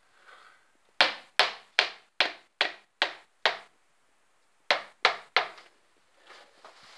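A hammer driving a small nail into a wall: a run of seven quick blows, about two or three a second, a short pause, then three more.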